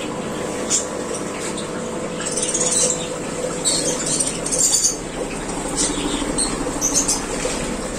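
Small caged birds chirping and squeaking in short repeated bursts over the steady hum of an aquarium air pump.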